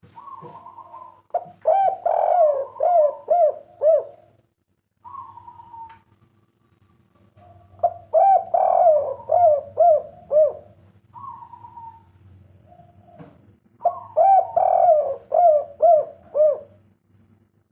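Spotted dove (derkuku/tekukur) of the 'kuk 3' song type cooing: three song phrases, each opening with a higher drawn-out note and then a run of about six or seven short, rounded coos. A faint steady hum runs underneath.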